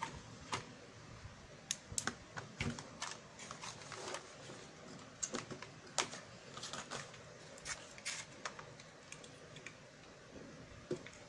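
Irregular light clicks and taps from a CRT TV's main circuit board being handled and multimeter test probes touching its parts while they are checked for shorts.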